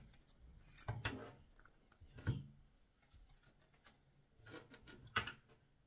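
Tarot cards being handled and shuffled: a few soft card taps and rustles, the sharpest about two seconds in.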